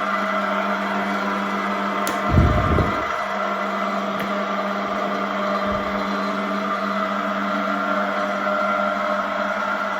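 Sydéric SF 62 milling machine running steadily, a motor and gear whine made of several constant tones. A click and a short low thump come a little over two seconds in.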